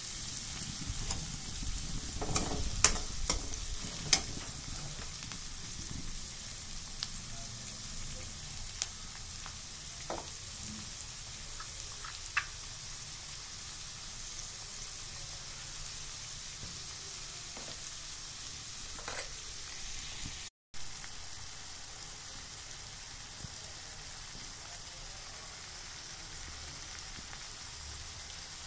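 Chopped onions and tomatoes sizzling in oil in a steel kadai, with a steel spoon knocking and scraping against the pan now and then, most often in the first few seconds.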